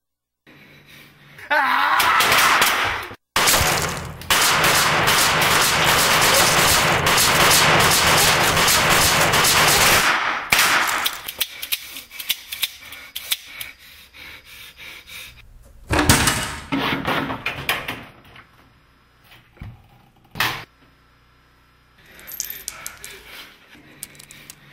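Gunfire: a long, dense run of rapid shots lasting about eight seconds, then a few scattered single shots.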